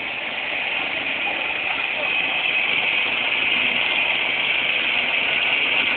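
Soil compactor's engine running steadily, with its vibrating rollers not engaged: a constant, even drone.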